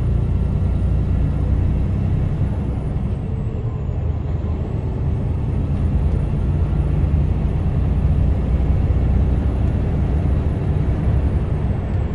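Heavy goods vehicle driving at a steady speed, heard from inside the cab: a constant low engine and road rumble.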